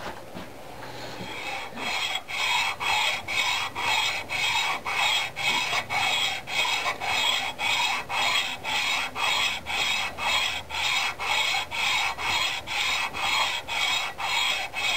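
Underside of a cast lathe banjo (tool post holder) rubbed back and forth on 80-grit emery cloth laid flat: a rasping scrape, about two strokes a second, starting about a second in. The rough casting is being sanded smooth so the banjo will slide easier.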